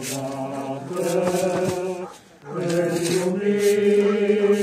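Congregation singing a slow hymn together in long held notes, with a brief pause between lines about two seconds in.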